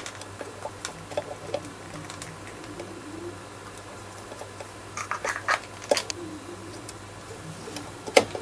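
Metal tweezers and a resistor's wire leads clicking and tapping against a printed circuit board as a through-hole resistor is fitted into its holes. The small scattered clicks include a quick cluster about five seconds in and sharper single clicks near six and eight seconds.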